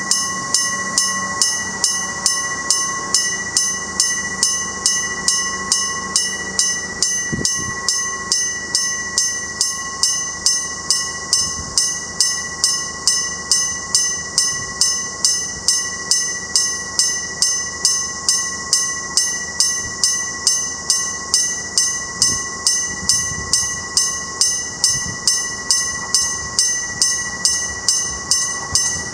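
Electric warning bell of a Japanese railway level crossing, ringing continuously in a steady, evenly repeated series of bright metallic strikes: the crossing is active, warning of an approaching train.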